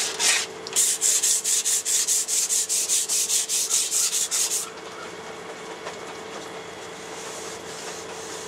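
Folded sandpaper rubbed hard back and forth along the edge of a lathe bed, about four or five quick strokes a second, stopping a little under five seconds in. It is scouring off a crust of dust and rust that had kept the tailstock from sliding.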